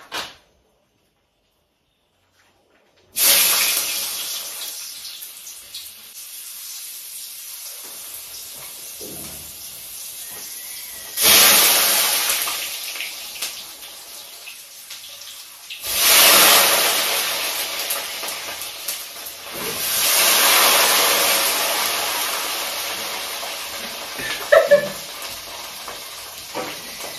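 Fries dropped into hot cooking oil in a pot, sizzling: a sudden loud sizzle a few seconds in that settles to a steady frying hiss, flaring up again three more times as more fries go in. A couple of light clinks near the end.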